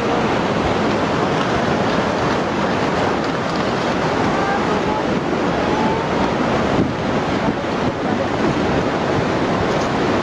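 Tsunami floodwater surging through a town, a steady loud rushing noise of water and debris.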